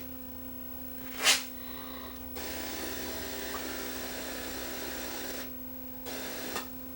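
Audio output of a Sony EVS7000 Hi8 deck with a faulty capacitor in its audio circuit: a steady hum with static hiss that switches in about two seconds in and cuts out again about three seconds later, with a short pop a second in.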